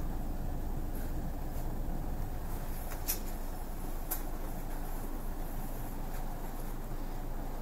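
Low steady rumble and hum inside the carriage of an ED4M electric train at the platform, with two sharp clicks about three and four seconds in.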